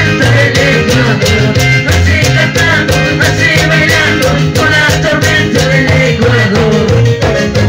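Loud Ecuadorian zapateo dance music played over loudspeakers: a steady, fast drumbeat under strong bass notes and a wavering high melody line.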